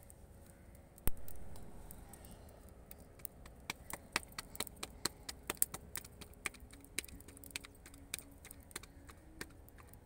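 Roti dough being patted flat between the palms by hand, a steady run of light slaps about four a second starting about three seconds in. A single sharp knock about a second in.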